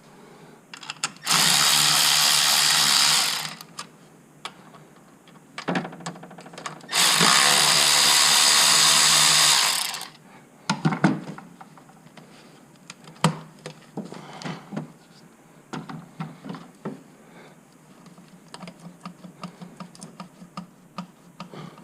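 A power drill runs in two steady bursts of about two and three seconds, then comes a series of light clicks and knocks from parts being handled.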